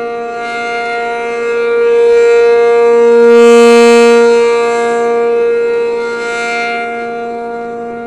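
ACA P-50 rotating civil-defense siren sounding its steady two-tone alert chord of about 470 and 705 Hz. The sound grows louder to a peak about three and a half seconds in as the slowly turning horn faces the listener, then fades as it turns away.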